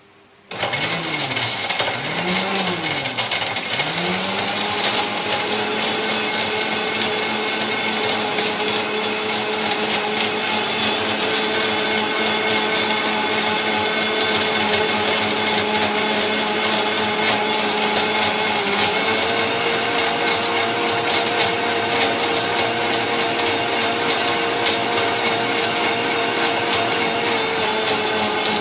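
Electric mixer-grinder switched on about half a second in, its motor blending a milkshake in the steel jar. The pitch wavers up and down for the first few seconds, then settles into a steady whine that rises slightly about two-thirds of the way through.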